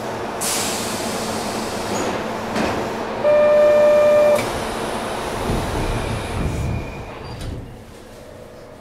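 Kintetsu 3220 series train running, heard from inside the car: steady rail and running noise from its Hitachi IGBT VVVF-driven motors. About three seconds in comes a loud single steady tone lasting about a second. The running noise grows quieter near the end.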